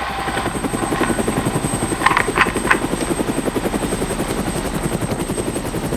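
Helicopter rotor chopping steadily in a fast, even beat. A few brief higher-pitched sounds come about two seconds in.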